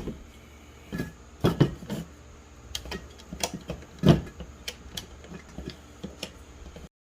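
Metal parts of a floor-mounted automatic transmission shifter being handled and fitted together: a series of irregular clicks and knocks, the loudest about four seconds in. The sound cuts off suddenly near the end.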